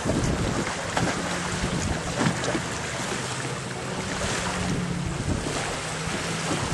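Wind buffeting the microphone and small waves washing on a pebble shore, with a faint steady hum of a small motor that comes and goes.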